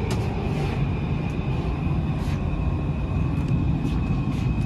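Cabin noise of a Taipei Metro 341-type train running between stations: a steady low rumble with a constant high whine over it and a few light clicks.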